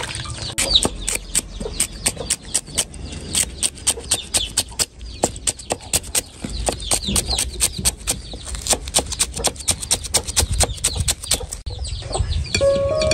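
Cleaver chopping spring onions on a wooden cutting board: a quick, uneven series of knocks, several a second, that stops near the end.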